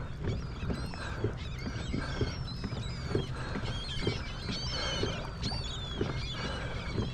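A flock of seabirds calling: many short, high calls overlapping one another, over a low steady rumble.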